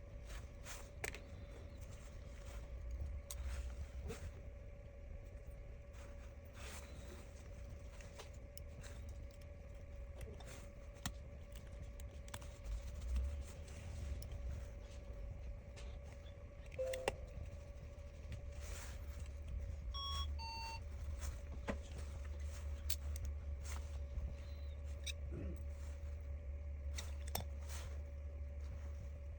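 Faint scattered clicks and taps of small tools and parts being handled during phone reassembly, over a steady low hum and a faint steady tone. A brief run of short electronic beeps comes about twenty seconds in.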